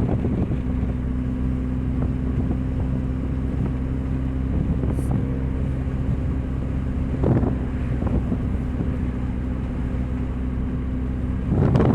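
Steady low drone of a 2000 Nissan Altima's 2.4-litre four-cylinder engine through a leaking exhaust, heard while driving, over road noise; it swells briefly about seven seconds in and grows louder near the end. The drone is the sign of the exhaust leak.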